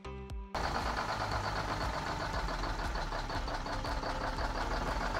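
Detroit Diesel 6-71 turbocharged marine diesel engine running steadily after cutting in about half a second in, a dense rattling clatter with a steady high whine over it. This is the port engine's first run after sitting unused for over ten years.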